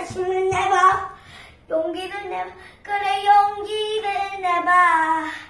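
A young child singing a tune in several short phrases, with long held notes.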